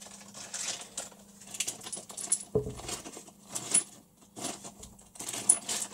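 Small broken pieces of a cast zinc-alloy bipod part clinking against each other while being handled, with a clear plastic bag rustling and one dull knock about two and a half seconds in.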